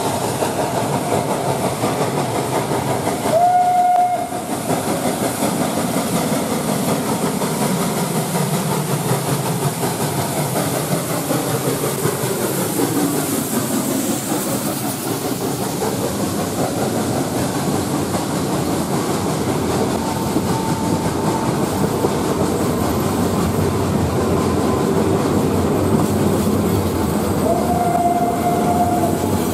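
Steam locomotive hauling a passenger train approaches and passes close by, followed by the clickety-clack of its coaches' wheels over the rail joints. A short whistle blast sounds about three and a half seconds in, the loudest moment, and a second one near the end.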